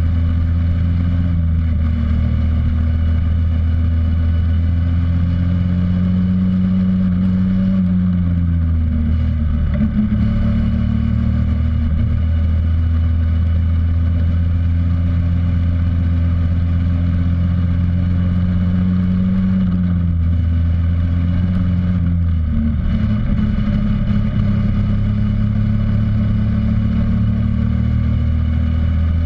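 X15 super pocket bike's small engine running hard, heard close from a camera mounted on the bike. Its pitch rises and falls with the throttle, dipping briefly about eight seconds in and again about twenty seconds in before climbing back.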